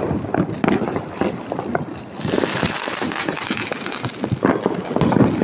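Diwali firecrackers going off all around: a dense, irregular run of pops and crackles, with a hissing rush starting about two seconds in.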